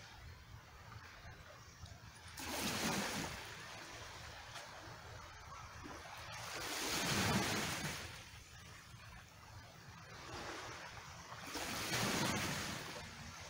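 Small waves washing in over a rocky, cobbled shore and rock pool: three rushing swells of water about four to five seconds apart, each building and fading over a second or two, over a steady background hiss of water.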